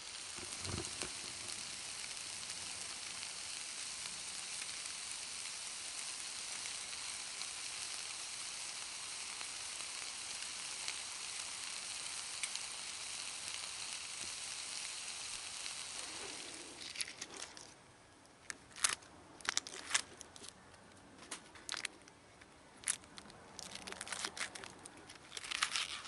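Steak sizzling in a frying pan, a steady sizzle that stops suddenly about two-thirds of the way in. Scattered small clicks and crackles follow.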